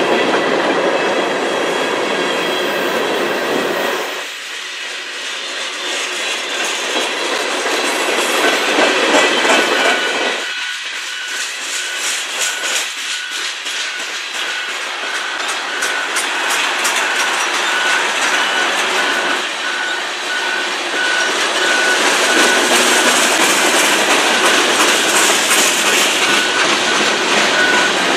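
Freight train cars, tank cars and a boxcar, rolling past close by, their steel wheels clicking in quick runs over the rail joints. A thin high whine comes and goes from about halfway through.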